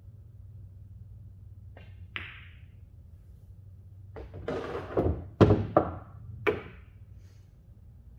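Cue tip clicks on the cue ball, and a moment later the cue ball clacks into the object ball. From about four seconds, the pocketed ball drops and rolls down the table's ball-return channel, giving a run of heavy clunks and rumbling as it knocks against the other balls, loudest about a second and a half in.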